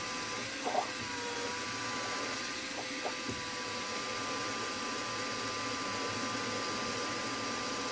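Small milling machine's spindle motor running steadily with a 6 mm drill cutting into a metal conrod blank: a steady whine with a few light ticks.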